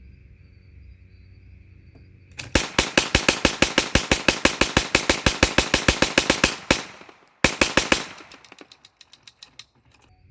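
9mm Gatling gun firing two bursts: a long one of about four seconds at roughly eight shots a second, then a short burst of a few shots, followed by a fading echo.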